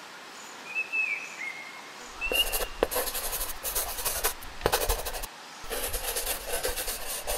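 A few faint bird chirps, then from about two seconds in a pen scratching across paper in quick irregular strokes, with a brief pause near the five-second mark.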